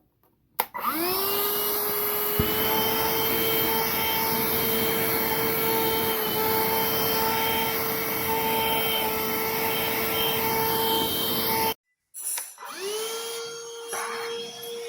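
BLACK+DECKER 20V MAX Dustbuster cordless handheld vacuum switching on, its motor whine rising as it spins up and then running steadily with a rushing hiss. It stops abruptly about twelve seconds in, then starts and spins up again.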